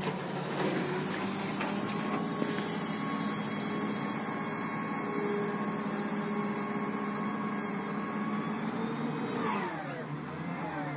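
A 2005 flatbed tow truck's hydraulics working the tilted bed: a steady mechanical whine with a hiss over the running engine, the hiss cutting off near the end.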